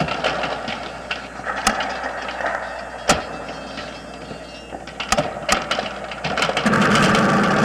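Noisy sound-effects intro to a metal track: a clattering, mechanical rumble broken by a few sharp cracks, with a louder, steadier sound coming in near the end.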